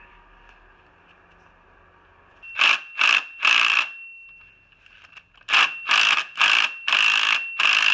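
Impact wrench hammering in short trigger bursts on a bolt-extractor socket, working a rusted, rounded-off bolt loose. Three bursts come about two and a half seconds in and about six more follow from the middle on, with a steady high whine between them.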